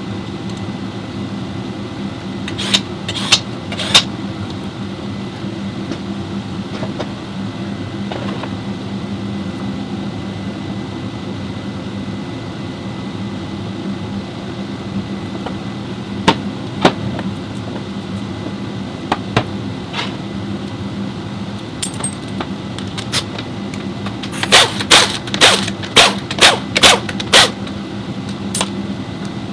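Steady mechanical hum with scattered sharp metallic clinks. A quick run of about a dozen clanks comes near the end, typical of hand tools being worked during car repair.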